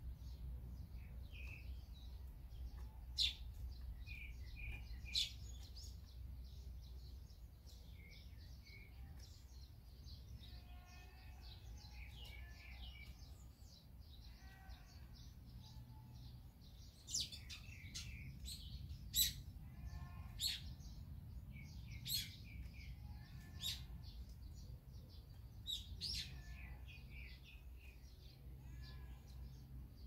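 Eurasian tree sparrows chirping: scattered short, sharp chirps that come thicker and louder from a little past halfway, over a low steady rumble.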